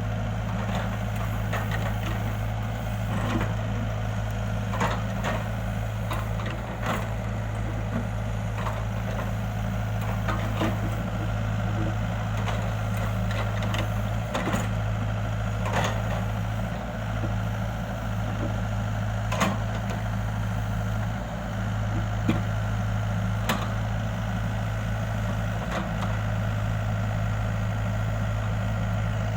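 Excavator's diesel engine running steadily, its low hum dipping briefly every few seconds, with scattered clanks and knocks throughout.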